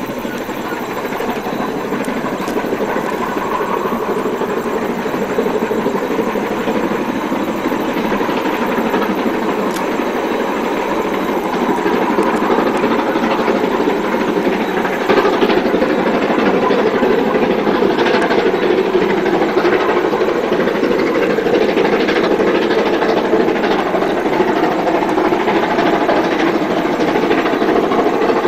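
KA 945, a New Zealand Railways KA-class steam locomotive, working a passenger train. Its exhaust and running gear grow steadily louder as it approaches.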